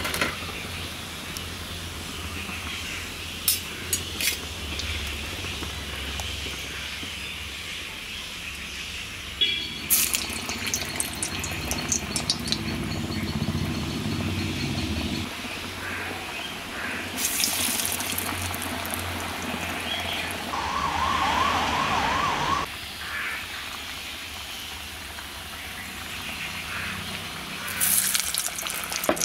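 Hot oil frying in an iron kadai, a steady sizzle with metal clinks of a wire spider against a steel strainer early on. The sizzle flares up loudly twice as hand-shaped vada batter is dropped into the oil, the second time near the end. A brief warbling tone sounds in the background a little past the middle.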